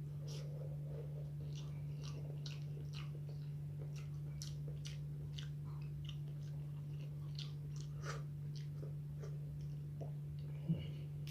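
Close-miked chewing: wet mouth clicks and smacks of a person eating eggplant balado and omelette, coming irregularly several times a second over a steady low hum. One sharper knock near the end.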